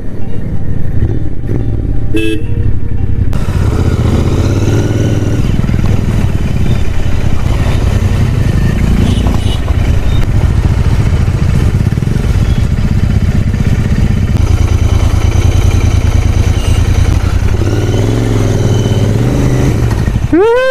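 Royal Enfield Interceptor 650's parallel-twin engine running steadily while the motorcycle is ridden at road speed. Near the end a short tone rises and falls in pitch.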